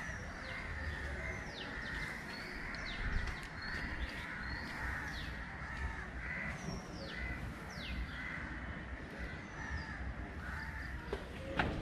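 Crows cawing again and again outdoors, mixed with another bird's high, quickly falling calls, over a low steady rumble; a couple of sharp clicks near the end.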